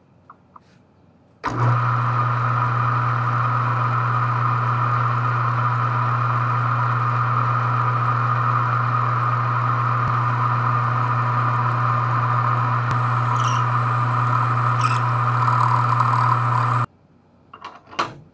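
Metal lathe running with a steady hum while a twist drill in the tailstock chuck bores a deep hole into the end of the spinning metal bar stock. It starts about a second and a half in and cuts off abruptly near the end, followed by a few light clicks.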